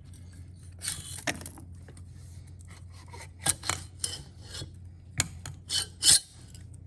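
Metal engine parts and a hand tool scraping, rubbing and clinking in short, irregular bursts as a Honda TRX90 cylinder is worked off its piston during a top-end teardown.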